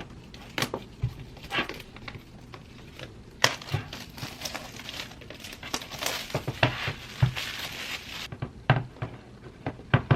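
Packaging being unwrapped from a boxed keyboard: crinkling and tearing with scattered handling knocks. A dense stretch of crinkling in the middle stops suddenly.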